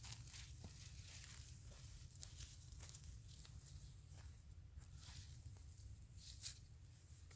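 Faint, irregular crackles and light rustling, with one louder crack near the end, over a low steady rumble.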